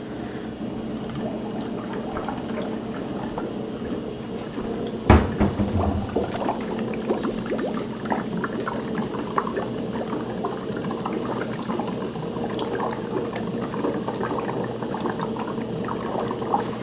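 Exhaled breath blown through a drinking straw into a glass of red cabbage indicator solution, bubbling steadily and frothing the liquid, the breath's carbon dioxide dissolving into it. A single sharp knock about five seconds in.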